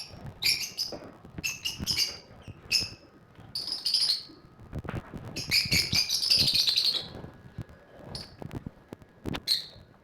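Caged lovebirds giving shrill, chattering chirps in repeated bursts, with a longer run of calls about six seconds in. Light clicks and taps come between the calls.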